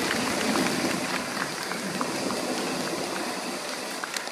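Theatre audience applauding: a dense, rain-like patter of clapping that slowly fades, with louder individual claps picking up near the end.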